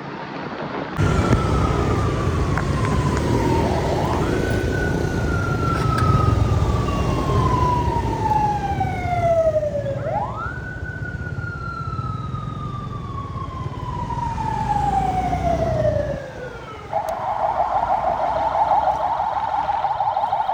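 Ambulance siren sounding a slow wail: the pitch slides down and snaps back up about every six seconds, over steady low road noise. Near the end it switches to a fast warble.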